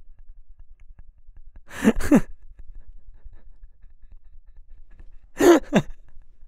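A voice making two short, breathy, wordless groans that fall in pitch, about three and a half seconds apart, each in two quick parts.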